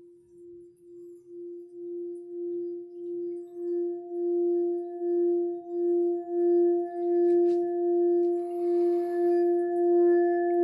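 Singing bowl sounding one steady, pure tone that pulses about twice a second and swells from faint to loud over the first few seconds, with higher overtones coming in as it builds.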